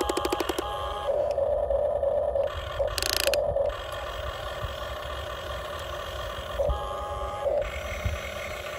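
Huina RC toy excavator's electric motors whining and gears rattling as the boom and bucket move, with a quick run of clicks at the start and a harsher burst of rattling about three seconds in.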